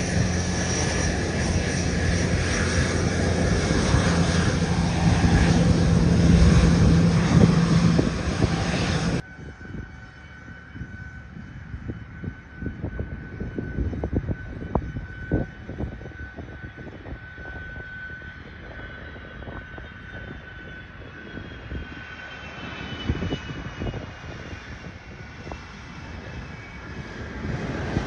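Boeing 717 jet engines running loud on the runway, with a steady low drone that builds slightly. After a sudden cut, a much quieter Boeing 757 on approach, its engine whine sliding slowly down in pitch.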